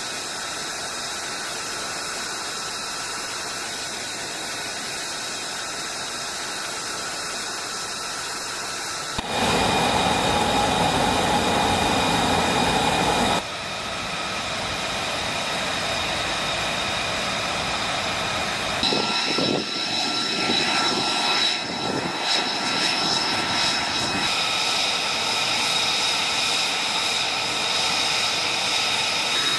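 F-35 Lightning II jet engines running with a steady high whine over a rushing noise. The sound changes abruptly several times, about 9, 13, 19 and 24 seconds in, as separate recordings are joined, and is loudest from about 9 to 13 seconds.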